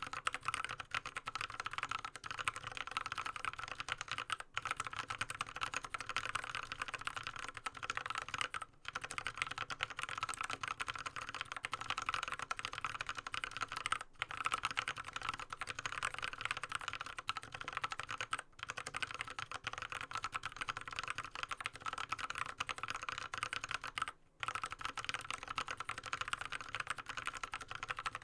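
Fast, continuous typing on a Drop CTRL High-Profile mechanical keyboard with an aluminium plate and Kailh Speed Bronze clicky switches lubed with Krytox 105. The typing breaks off briefly about five times.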